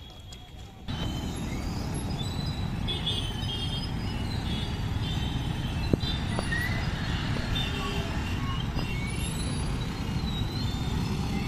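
Dense traffic of motorcycles and scooters, many engines running at once as they move off across the tracks, with voices mixed in. The noise rises abruptly about a second in, and there is one sharp click about halfway through.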